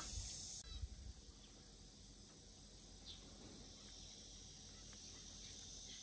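Near silence: faint, steady outdoor background hiss, with a few soft low thuds in the first second.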